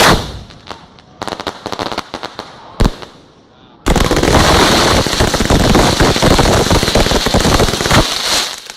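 Fireworks display: a loud bang at the start, scattered crackling pops and another bang a little before three seconds in, then about four seconds of loud, dense, continuous crackling that cuts off suddenly near the end.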